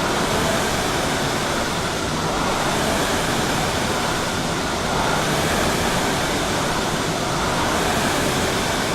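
Concept2 indoor rowing machine's air-resistance fan flywheel whooshing steadily during easy three-quarter-slide strokes.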